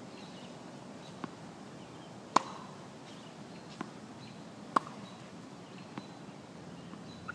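Tennis balls hit back and forth in a rally: sharp pops of racket strings striking the ball. Two loud strikes come close by, a couple of seconds apart, with fainter distant hits and bounces between them.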